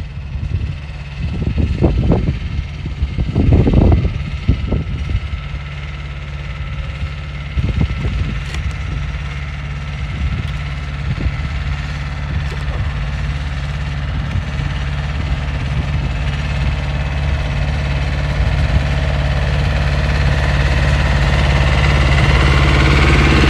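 Yanmar YM2210 compact diesel tractor engine running steadily as the tractor drives toward the listener, growing steadily louder toward the end. A few loud low rumbles come in the first few seconds.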